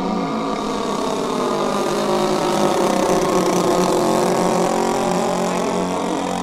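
Two O.S. 30 cc engines of a radio-controlled scale Cessna 310 running steadily, louder around the middle.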